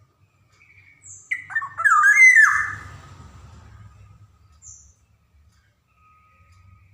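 Black-naped oriole calling: one loud burst of quick, gliding whistled and harsh notes about a second in, lasting about a second, with a few faint high chirps before and after.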